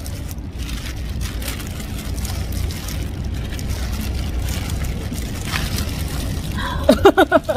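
Clear plastic bag around a large Christmas bread crinkling as it is handled and unwrapped, over a steady low rumble. A short, loud burst of voice near the end.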